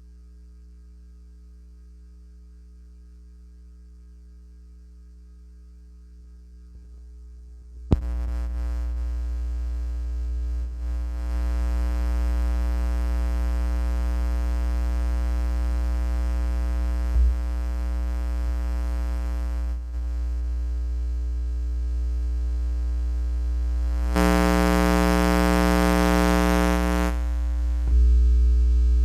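Steady electrical mains hum. About eight seconds in it jumps suddenly to a much louder sustained drone of steady low hum and many held tones. The drone holds on and grows brighter for about three seconds near the end.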